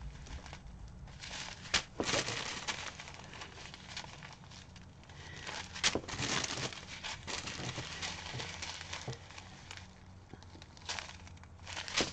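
Small zip-lock plastic bags of diamond-painting drills and a large clear plastic bag crinkling and rustling as they are handled. The rustles are irregular, with sharper crackles about two seconds in, about six seconds in, and near the end.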